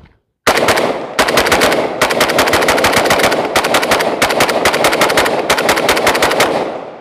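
Zastava PAP M90 PS, a semi-automatic 5.56 mm AK-pattern rifle, fired in a rapid string of several shots a second for about six seconds until the magazine is empty. The echo of the last shots fades out near the end.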